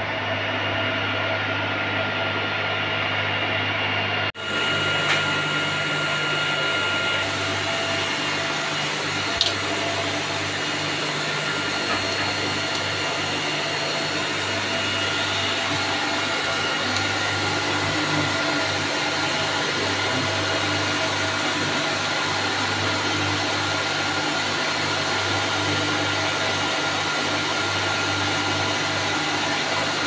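Steady whir of rack-mounted server cooling fans: several fixed tones over a dense hiss. It briefly drops out about four seconds in, and a single click comes about nine seconds in.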